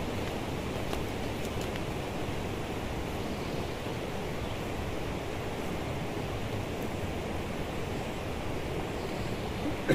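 Steady rushing outdoor background noise without any distinct event.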